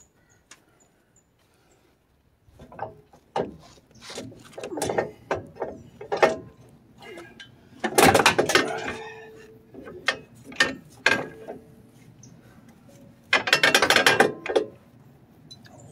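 Metal clanks and knocks from the truck's front suspension as the strut is worked loose, then a quick run of hand-ratchet clicks near the end.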